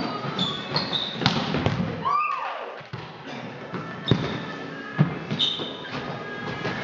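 Volleyball rally in a large sports hall: the ball is struck sharply by players' arms three times, each hit echoing. Short sneaker squeaks on the hall floor come between the hits.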